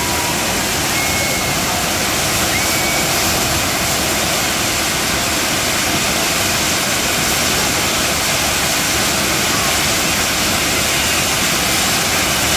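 Kerala fireworks tower (kambam) alight, its many spark fountains burning at once with a loud, steady rushing hiss.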